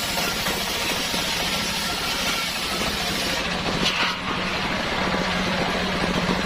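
A homemade circular sawmill rig running steadily with a constant hum and a hiss. The high hiss eases off from about halfway and comes back near the end.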